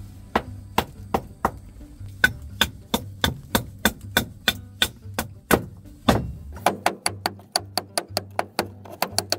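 Firewood struck repeatedly against kindling: sharp wooden knocks, about three a second, coming faster near the end.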